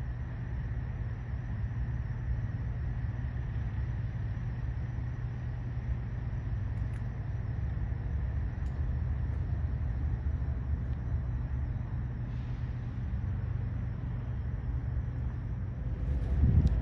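Steady low rumble of a running vehicle engine, growing briefly louder near the end.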